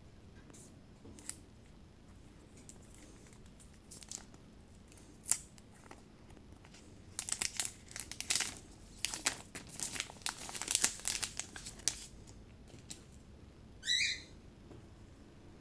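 Xiaomi 14 Ultra rear camera module rattling and clicking as the phone is moved: a few isolated clicks, then a dense run of crackling clicks in the middle, and a short rising chirp near the end. The uploader takes it as normal for the Ultra series.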